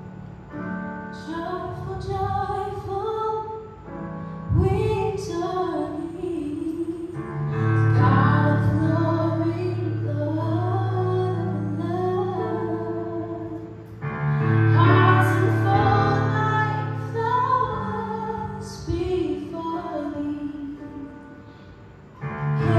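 A woman singing a slow song in long phrases over sustained instrumental accompaniment.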